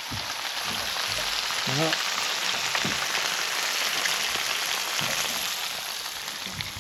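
Halved crayfish sizzling in garlic butter in a hot pan. The sizzle is loudest through the middle and eases slightly near the end.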